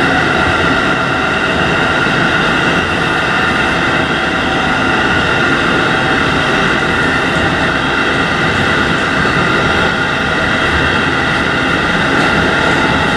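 JR Hokkaido 711 series AC electric train running steadily at speed, heard from inside the front of the train: a constant rumble and hiss of running noise with several steady high whining tones over it.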